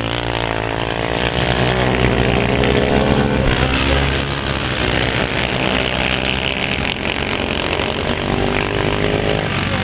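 Several racing quad bikes running at full throttle together, their engine notes rising and falling and overlapping as the riders work the throttles through the turn. They are loudest about three to four seconds in, as the quads pass close.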